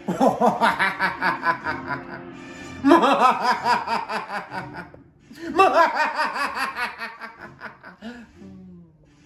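A man's exaggerated villain laugh in the style of Dr. Evil: three long rounds of rapid "ha-ha" pulses, each starting on a rising pitch, with background music under it.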